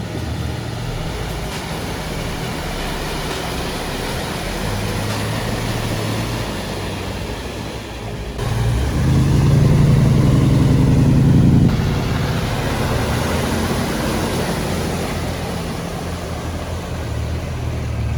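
Off-road 4x4 vehicle engine running while driving, steady and fairly loud, with a louder, deeper stretch of harder engine work around the middle that stops abruptly.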